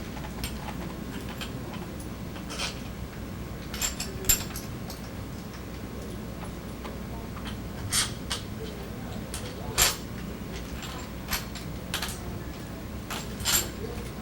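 Scattered sharp clicks and clinks of metal stroller tubes and kit parts being handled during assembly, the loudest about four and ten seconds in, over a steady low hum.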